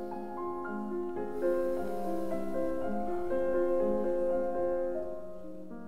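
Slow piano music with held notes, the melody moving from note to note every half second or so.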